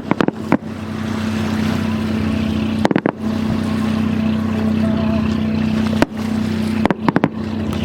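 Motorboat engine running with a steady hum, broken by a few sharp short knocks or pops near the start, about three seconds in, about six seconds in and just before the end.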